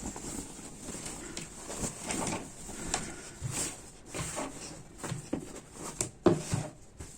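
Lining fabric being folded by hand: irregular rustling with a few soft knocks, the sharpest about six seconds in.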